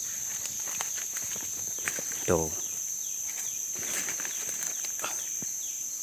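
Steady high-pitched insect drone, with a few light clicks and rustles close by.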